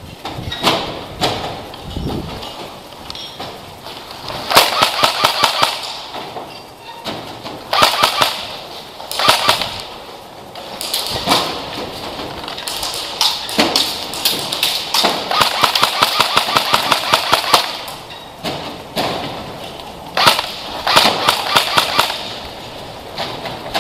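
Airsoft guns firing about five full-auto bursts of rapid, evenly spaced clicking shots. The longest burst lasts about two and a half seconds.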